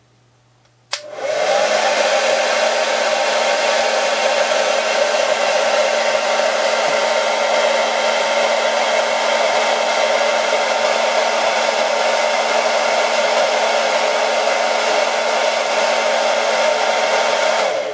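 Handheld hairdryer switched on with a click about a second in. Its motor spins up to a steady, loud blowing rush with a hum, and it is switched off at the very end.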